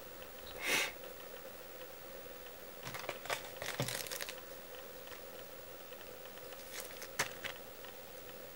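Small handling noises of fly-tying tools and materials at the vise: a brief rustle about a second in, then scattered clicks and crinkling around three to four seconds and again near seven seconds, over a faint steady hum.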